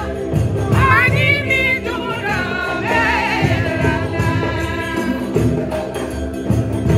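A woman singing Malian griot song into a microphone, her voice amplified through a PA, with sung phrases about a second in and again about three seconds in. Hand drums play a dense, steady rhythm underneath.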